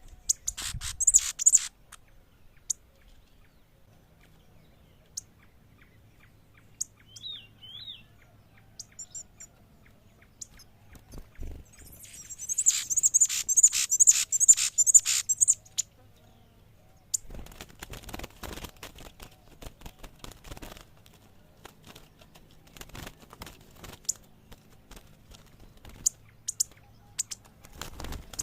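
Pileated finch (cravina) singing in bursts of rapid, high chirps: a short burst about a second in and a longer one of about four seconds halfway through, with a few single notes between. Later come spells of clicking and rustling noise.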